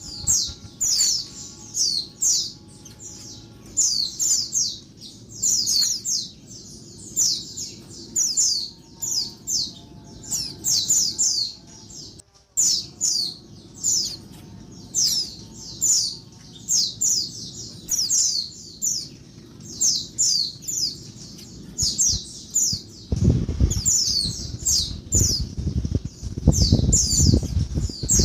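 Female white-eye (pleci) calling noisily: clusters of quick, high, downward-sweeping chirps, repeated every second or so. A loud low rumble joins in about five seconds before the end.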